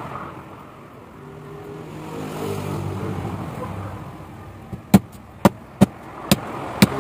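Five sharp chops of a kitchen knife through roast pork onto the plate and table, about two a second near the end, after a low, steady engine hum from a passing vehicle earlier on.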